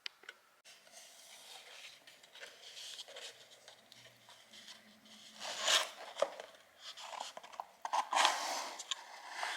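Packaging rustling and crinkling as a parcel is opened by hand, with louder bouts of handling about six and eight seconds in.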